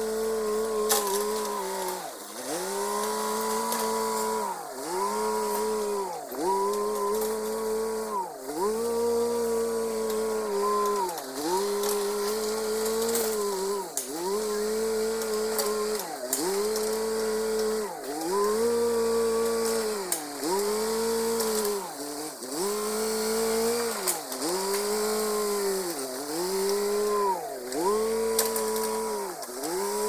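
An engine running at high revs, its pitch dipping and recovering over and over in a steady cycle about every one and a half seconds.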